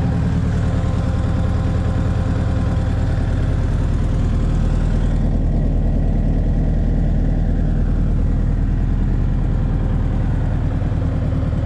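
Bobcat 3.4 L turbo diesel engine of a tracked skid steer idling steadily, held at idle because it will not throttle up. A higher hiss over the engine drops away about five seconds in.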